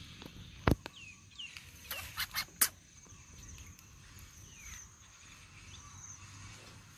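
Birds giving short falling chirps over a steady high insect trill. One sharp knock comes under a second in, and a quick run of three or four knocks follows a little later.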